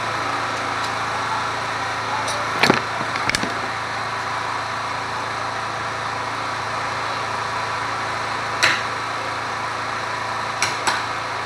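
A few sharp, widely spaced knocks, one pair close together near the end, from a chisel being struck while boring out the recess for a door lock. Under them runs a steady background noise.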